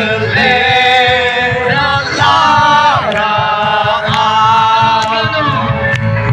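Two men singing together loudly in long held notes, each lasting about a second.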